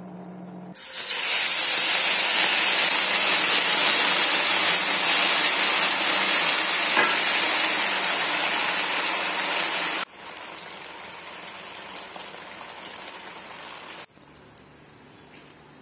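Sorghum dosa batter sizzling loudly on a hot oiled tawa. The sizzle starts suddenly about a second in, drops abruptly to a softer sizzle at about ten seconds, and drops again near the end.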